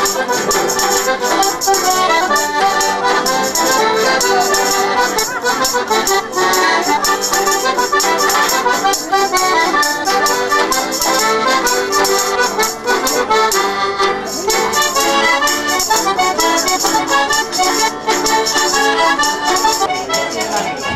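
Accordion and banjo playing a folk tune together, with hand percussion rattling in time.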